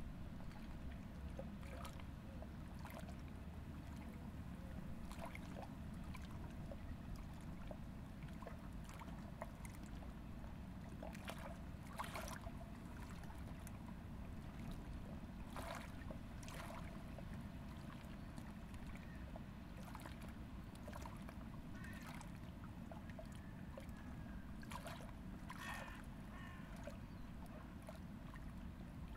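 River water lapping gently at a rocky bank: a soft, steady low wash with small splashes and plops scattered throughout.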